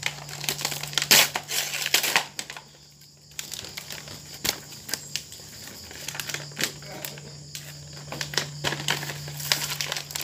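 Gift wrapping paper being torn and crumpled by hand in irregular rustles, with a brief lull about three seconds in.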